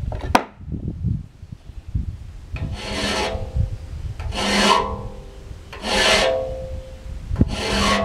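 Hand file sharpening a tooth of a circular sawmill blade: four slow rasping strokes about a second and a half apart, the steel blade ringing under each stroke.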